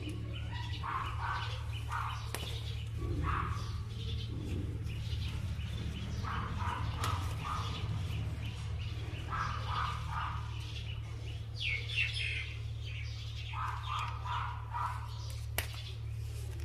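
Birds chirping in short bursts of repeated notes every few seconds, over a steady low hum.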